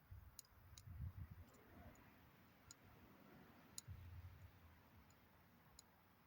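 Faint, scattered light clicks and a couple of soft low bumps from small plastic model-car parts being handled on a work table.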